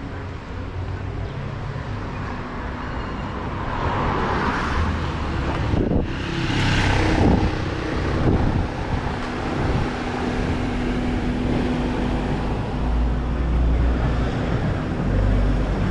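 Road traffic: vehicles passing with a steady engine hum underneath, the loudest going by with a whoosh about six to seven seconds in.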